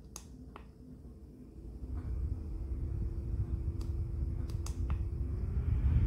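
A battery-powered camping fan: a few sharp clicks, then about two seconds in its motor starts with a steady hum and a low rush of air, the hum rising a little and the air growing louder near the end.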